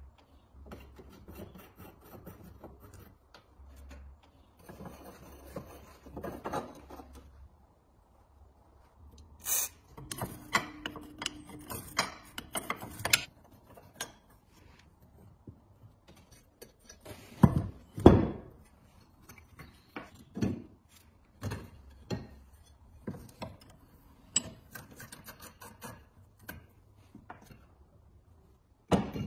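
Hand work taking apart an antique enamelled cast-iron stove: rusty bolts and metal fittings scraping, rubbing and clinking against the stove and a wooden bench, with a short squeak a little after ten seconds in and a few sharp knocks, the loudest about eighteen seconds in.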